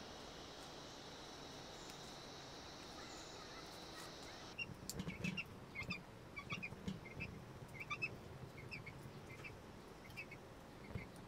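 A steady high insect drone at first, which cuts off about four and a half seconds in. Then a covered steel pot of rice boils on the fire: soft low bubbling with quick high chirps scattered over it.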